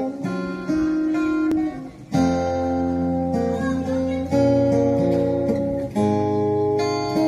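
Two acoustic guitars playing an instrumental passage together, strummed chords under picked notes, changing chord every second or two. The playing drops out briefly just before two seconds in.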